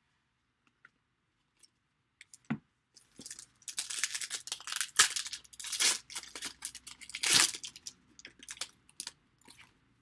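A trading-card pack's wrapper being torn open and crinkled in the hands: after a few faint clicks, a dense stretch of tearing and crinkling from about three seconds in, loudest about halfway, trailing off into scattered crinkles near the end.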